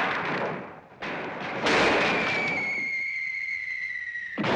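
Cartoon sound effects: a loud, noisy crashing rush, then a long whistle slowly falling in pitch over rushing noise for about two and a half seconds, cut off abruptly by more crashing noise.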